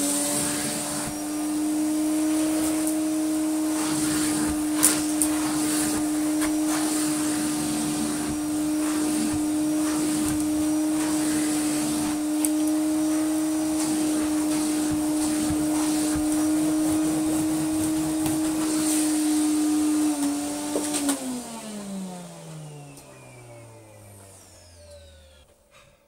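Vacuum cleaner running with a steady hum as its hose nozzle is worked over a dusty carpet-covered workbench, with scattered clicks and rattles of debris being sucked up. About twenty seconds in it is switched off and the motor winds down, its pitch falling over several seconds.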